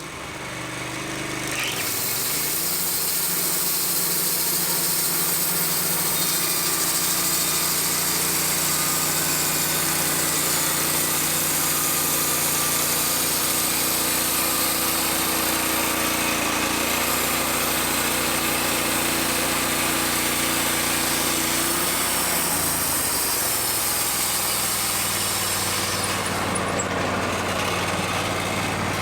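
Wood-Mizer LT15 portable band sawmill running steadily, its engine note shifting pitch about two seconds in and again near the end. The sound fades up over the first couple of seconds.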